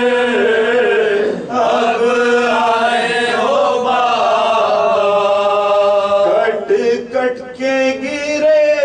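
Man's voice chanting a marsiya without accompaniment, drawing out long wavering melodic notes with a short break about a second and a half in; the line turns choppier after about six seconds.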